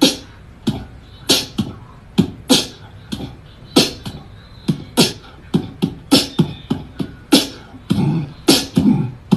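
Beatboxing: a fast, uneven rhythm of sharp mouth-made hits and low thumps, about two to three a second.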